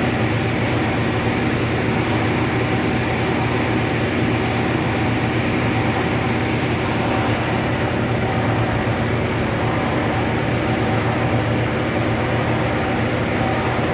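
Heavy drum carpet-wringing (spin-drying) machine driven by a 7.5 kW motor, running steadily at constant speed with an even mechanical hum.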